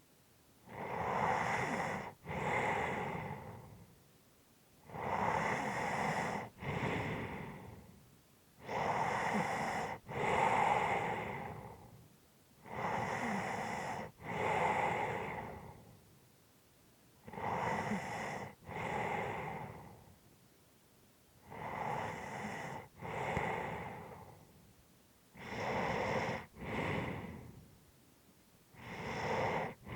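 A person's slow, heavy breathing while resting or asleep: about seven breaths, one every four seconds or so, each an in-breath followed straight away by an out-breath.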